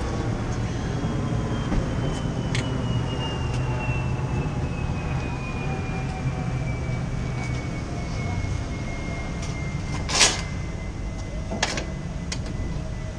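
Metal clanks and knocks from the torn-off awning arms of a travel trailer being taken down by hand, the loudest about ten seconds in, over a steady low vehicle rumble. A faint high whine slowly falls in pitch.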